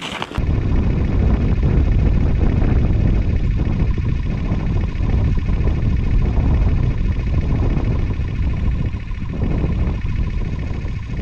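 Wind buffeting the microphone on open lake ice: a loud, unsteady low rumble that starts just after the beginning and runs on.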